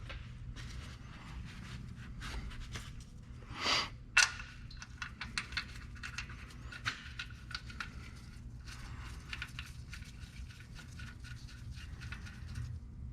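Small irregular metallic clicks and scrapes as a steel oil drain plug is threaded back into the oil pan, with one sharper click about four seconds in, over a steady low hum.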